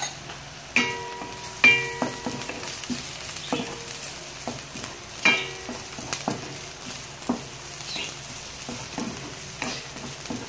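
Sliced ginger, garlic and onion sizzling in hot oil in a nonstick pot, stirred with a wooden spatula that knocks against the pot a dozen or so times; the hardest knocks, about one and two seconds in and again past five seconds, ring briefly.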